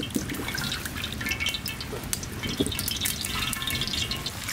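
Cooking oil poured from a metal jug into a large iron karahi over a wood fire, trickling and then dripping, with many scattered crackles.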